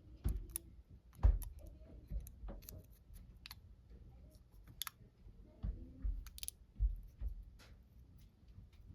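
Small metal tools clicking and tapping against a Master Lock 532 padlock's cylinder as a shim is worked in to draw out the plug, with a few dull knocks of the lock being handled. The clicks come at irregular intervals.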